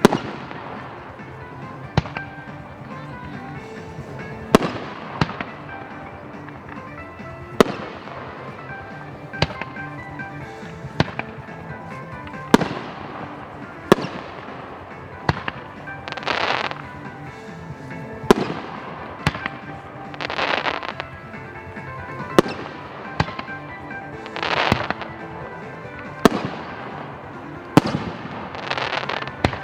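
Fireworks shells bursting in a steady series of sharp bangs, one every second or two. Several bursts are followed by a hissing tail about a second long. Background music plays under the bangs.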